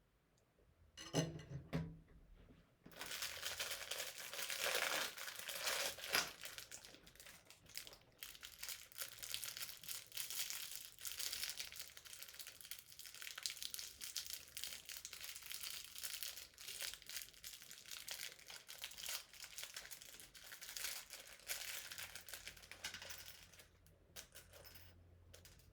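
Packaging crinkling and rustling as it is handled and pulled open during an unboxing, after a few knocks about a second in.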